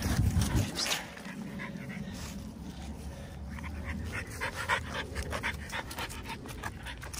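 French bulldog puppy panting in quick, rhythmic breaths, about four a second, as it pulls on the leash. A low rumble sounds in the first second.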